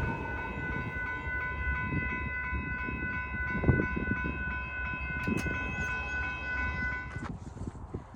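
Passing train: a low rumble with a steady chord of high tones over it, which stops suddenly about seven seconds in.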